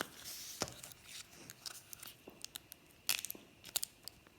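Scattered small clicks and taps of plastic toy packaging being handled while a child works at opening it.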